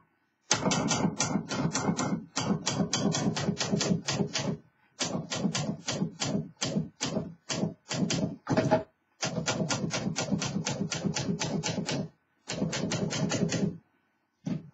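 1969 Remington Mark II typewriter being typed on: quick runs of key strikes, about seven a second, broken by short pauses, stopping about a second before the end.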